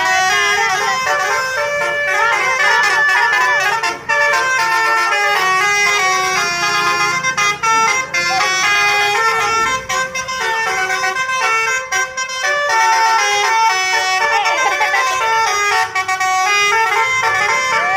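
Indonesian multi-tone 'telolet' bus air horns playing rapid tunes, the notes stepping up and down every fraction of a second with several horn tones sounding together, almost without a break. Two buses' horns are trading tunes in a telolet horn battle.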